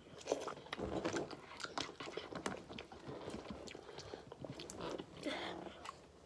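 Close, quiet chewing of instant noodles with small mouth clicks and smacks, and a brief murmur of voice about five seconds in.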